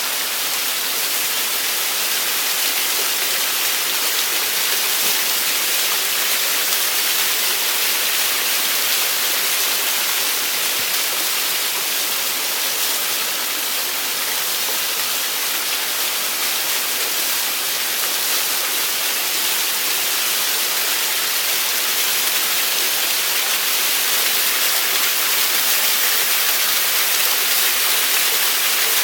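Waterfall: falling water making a steady, unbroken rushing hiss, its sound weighted to the high end.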